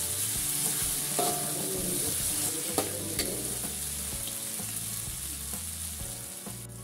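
Ground spice paste sizzling as it fries in oil in an aluminium wok, with a metal spatula stirring and scraping against the pan, clicking a few times in the first half. The paste is being sautéed until cooked before water is added.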